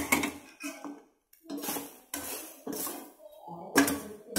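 Metal spatula scraping and clanking against a steel pan as grated coconut is stirred into fried pork blood, in a string of separate strokes, the loudest at the start and near the end.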